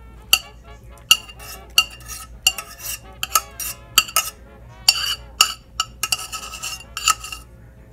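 Metal spoon scraping and knocking against the inside of a stainless steel saucepan while scooping out thick oatmeal: about a dozen irregular ringing clinks that stop near the end.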